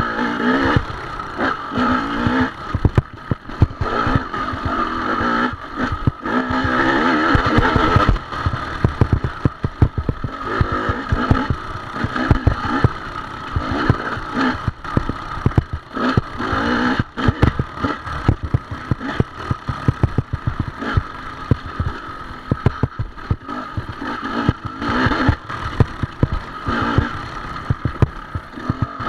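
Off-road dirt bike engine revving up and easing off again and again as the throttle is worked, with constant knocks and rattles from the bike bouncing over rough ground.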